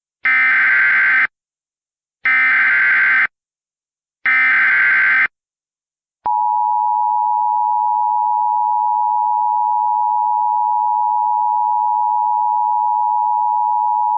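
Emergency Alert System tones opening a new alert. First come three identical one-second bursts of the SAME digital header, a harsh data warble repeated about two seconds apart. Then the steady two-note EAS attention signal (853 and 960 Hz) sounds for about eight seconds and cuts off.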